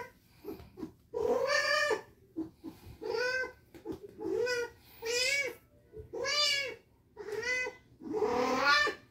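A spayed female tabby cat in heat yowling over and over, about one drawn-out call a second, each rising and then falling in pitch. The owner puts the heat down to ovarian remnant syndrome.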